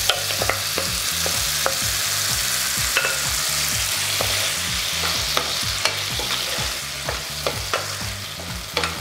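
Chopped fruit tomatoes sizzling in olive oil in a frying pan over low heat, with a steady hiss and many sharp clicks as a wooden spatula stirs them and knocks against the pan.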